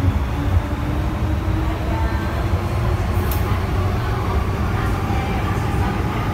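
MTR M-Train electric multiple unit running through a tunnel, heard inside the passenger car: a steady low rumble with a faint whine above it.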